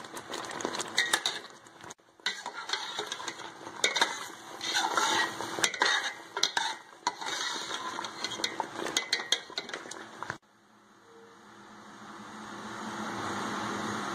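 Steel slotted spoon scraping and clinking against a steel pot while stirring thick semolina halwa. About ten seconds in, the scraping stops abruptly and a steady hiss with a low hum fades up.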